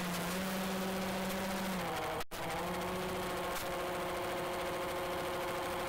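Motor and propeller of a homemade RC ground-effect plane running at a steady pitch, heard from a camera on the craft with rushing air noise. The sound cuts out for an instant about two seconds in, then carries on steadily.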